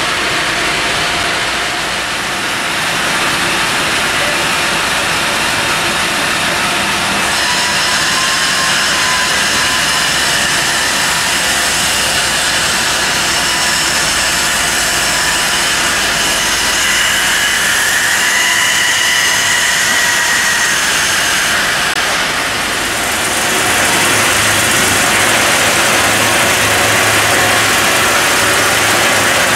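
Sawmill machinery running, a loud steady noise from a horizontal bandsaw mill and its handling gear. The sound changes twice, and for the last few seconds a low hum joins it as the bandsaw cuts through a log.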